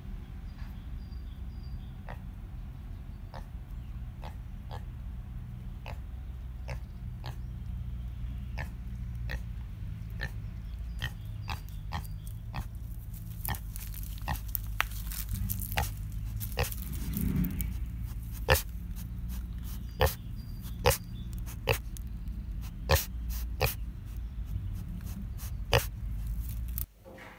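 Pig snuffling around, with one low grunt about two-thirds of the way through. Sharp clicks and crackles grow more frequent and louder in the second half, over a steady low rumble.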